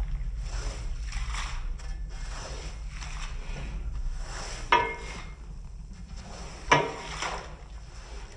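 Rug cleaning work: repeated swishing strokes about once a second over a steady low hum, with two sharp, briefly ringing knocks about two seconds apart in the second half.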